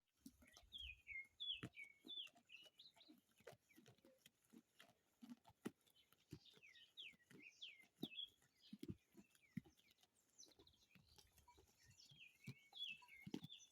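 Sheep grazing, with many short, soft crunches of grass being bitten and chewed. Small birds chirp over them in three quick phrases of high, downward-slurred notes.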